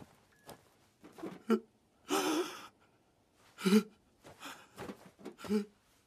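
A voice giving a series of short gasps and breathy sighs, about six in all, some voiced and some mostly breath, the longest a breathy exhale about two seconds in.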